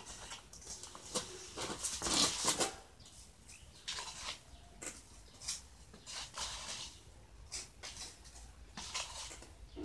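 Wet, gritty cement mortar being scraped and scooped with a small tin can and pressed by hand onto wire mesh, in irregular scratchy strokes. The strokes are loudest and densest about two seconds in.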